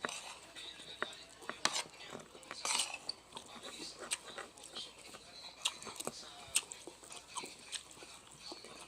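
Close-up eating sounds: chewing, smacking and gnawing on leftover chicken bones, with many short sharp clicks scattered throughout.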